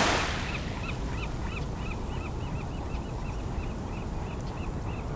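A flock of birds calling continuously, many short overlapping calls several times a second, over the steady wash of small waves on a sandy beach; a louder wave rush sweeps in at the very start.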